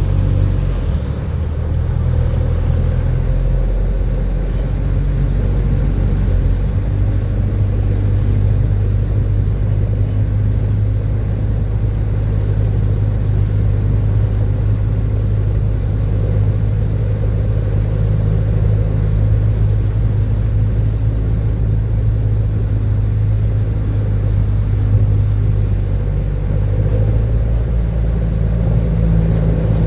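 A motor vehicle's engine running at a steady pace with a low drone, heard from inside the cabin.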